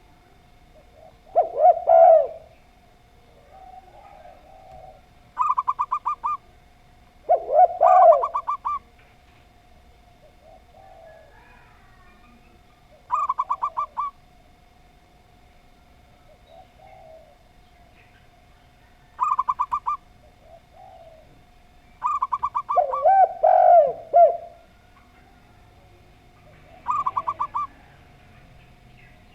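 Doves calling in turns: a zebra dove gives short, rapid stuttering coos about five times, and a spotted dove answers three times with louder, lower coos, over a faint steady tone.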